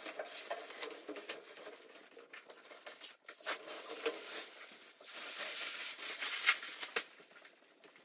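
Clear plastic stretch wrap being peeled and pulled off a large machine cabinet: an uneven rustle with many sharp crackles, loudest in the middle and late part.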